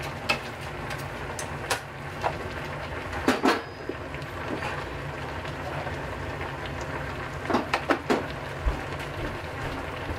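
Steady low hiss of a gas burner flame under a pot simmering beneath a foil drop lid, with a few sharp clicks and knocks from chopsticks and a plastic container being handled, clustered about three seconds in and again near eight seconds.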